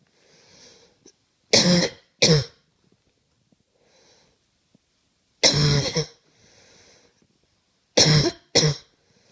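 A person coughing in fits: a double cough, then a single longer cough, then another double cough, with faint breaths drawn in between.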